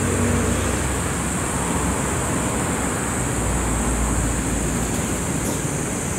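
EneJet Wash automatic gantry car wash machine running: a steady whooshing hiss with a low hum beneath it.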